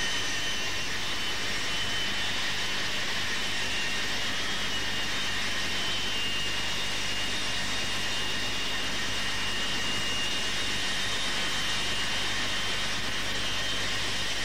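Jet airliner's engines running as it taxis: a steady rushing hiss with a high, even whine.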